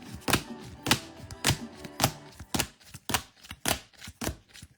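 Trading cards being flipped through and set down one after another, a sharp tap or slap about twice a second, over faint background music.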